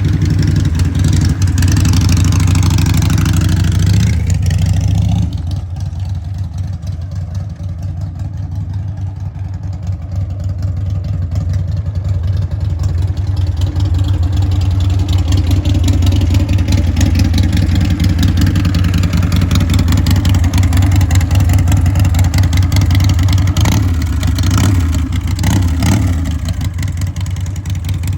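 Harley-Davidson bagger's V-twin engine running on a test ride, easing off about five seconds in and picking up again later.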